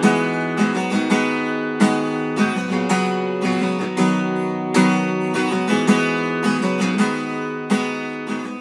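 Acoustic guitar music, strummed chords in a steady rhythm, fading out near the end.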